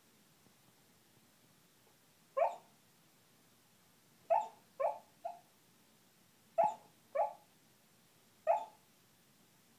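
Puppy barking in her sleep: seven short, muffled-sounding woofs, a single one, then three in quick succession, then two, then a last one near the end.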